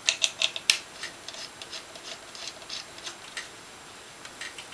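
Sharp clicks and light taps as the filter wheel and imager housings are handled and fitted together by hand. A quick run of clicks comes in the first second, then fainter scattered clicks and rubbing.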